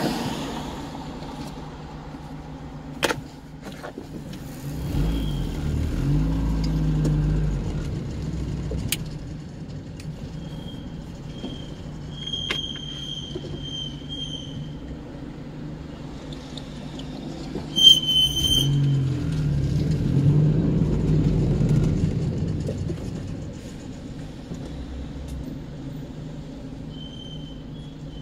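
Engine and traffic rumble heard from inside a car in slow stop-and-go traffic, swelling twice as vehicles move off. A brief sharp high squeak about two-thirds of the way through is the loudest moment.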